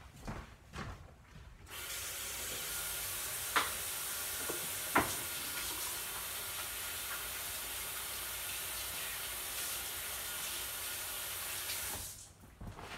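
Kitchen sink tap running while hands are washed under it. It comes on about two seconds in and is shut off near the end, with two sharp knocks partway through.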